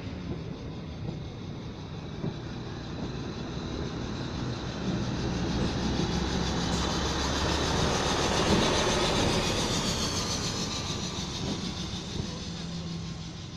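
Diesel-electric multiple unit (DEMU) train running past: a steady rumble of coaches on the rails, swelling as the diesel power car goes by about eight seconds in, then fading as the train pulls away.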